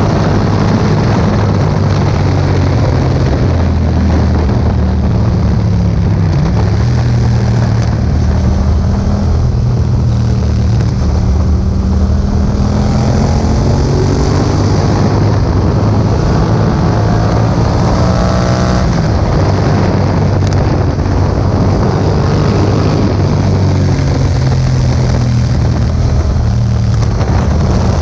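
Yamaha MT-07's parallel-twin engine through an Akrapovic exhaust, heard on board while riding, running steadily under load with its pitch shifting as the revs change and dipping briefly about six seconds in. Wind noise on the microphone runs underneath.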